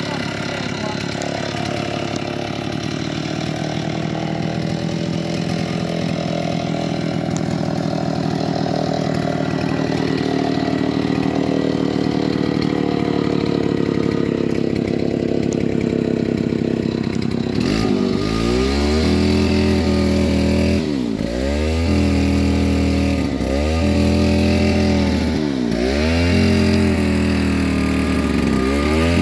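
Bulldozer's diesel engine running steadily. About two-thirds of the way in its note changes abruptly. After that the engine speed dips briefly and recovers about five times, every two to three seconds.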